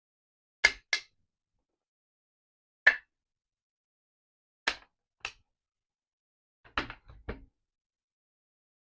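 A series of short, sharp clicks and knocks, about eight in all, some in quick pairs, irregularly spaced with silence between.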